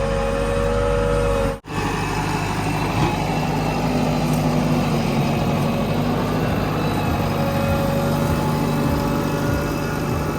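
Heavy diesel engine of earthmoving machinery running steadily. About one and a half seconds in, the sound breaks off for an instant and resumes with a slightly changed tone.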